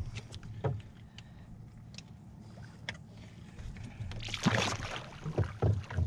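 Knocks and low thumps on a small boat's hull as the angler shifts his weight and handles a big redfish. There is a brief, louder burst of splashing about four seconds in as the fish is swung out and lowered back into the water.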